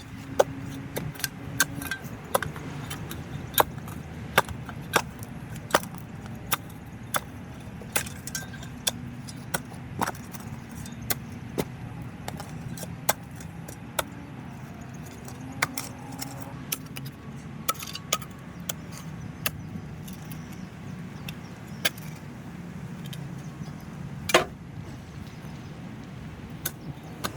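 A vehicle engine running steadily, overlaid by irregular sharp metallic clinks and knocks, about one or two a second.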